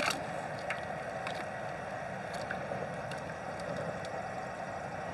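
Water sloshing and gurgling in a large aluminium stockpot as a bagged whole chicken is dipped up and down in near-boiling water to shrink the plastic bag around it, with a few light splashes over a steady low hiss.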